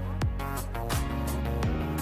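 Upbeat background music with a steady beat: a bass drum about three times every two seconds under sustained instrumental tones.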